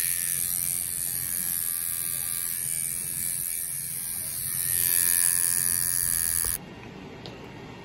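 Tattoo machine buzzing steadily while putting the highlights into a hand tattoo, stopping abruptly about six and a half seconds in.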